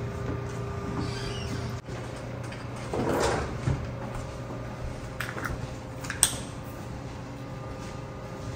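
Kitchen handling noises: a short rustling swish about three seconds in, then a few sharp clicks and knocks, over a steady low hum.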